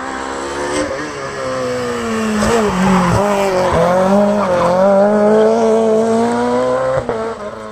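Rally car engine at high revs through a hairpin. The pitch dips and jumps with quick downshifts and a few sharp pops under braking, then holds high as the car accelerates out of the corner. Near the end the note drops suddenly as the driver lifts or the car moves away.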